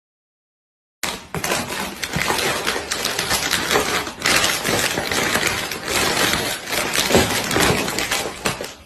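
Dense, continuous clattering and rattling made of many small knocks in quick succession. It starts abruptly about a second in and cuts off just before the end.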